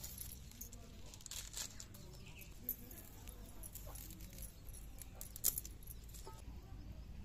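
Scattered small scrapes and clicks of cutting on a bonti, a fixed upright village blade: first a rohu fish being scaled against it, then Malabar spinach (puishak) stalks being sliced. One sharper snap comes a little past halfway.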